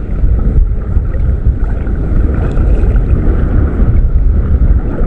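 Steady, heavy wind rumble on the microphone, over the wash of choppy sea water around the wading angler.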